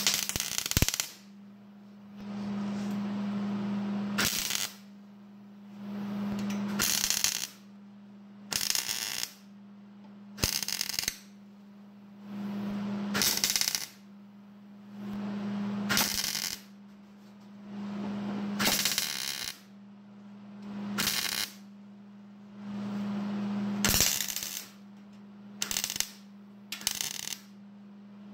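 Welder laying short stitch welds on thin sheet steel of a truck bed floor: about a dozen brief crackling bursts, one every two seconds or so, with stretches of a steady electrical hum between them.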